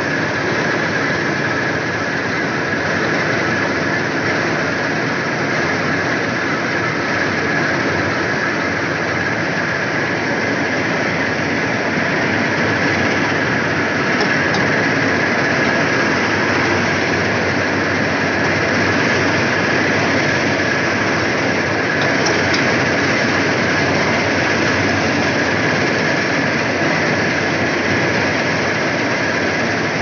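Preet combine harvester running under load while cutting standing grain: a steady, loud mix of engine and threshing machinery noise with a constant high-pitched whine over it.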